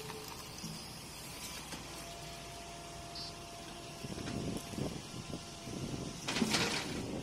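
Kobelco hydraulic excavator running as its bucket works at the top of a concrete water tank. Irregular scraping and knocking starts about four seconds in, with a louder rough burst near the end.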